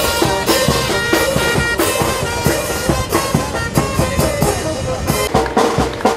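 Brass band playing a marinera, a brass melody over bass drum and cymbal strikes.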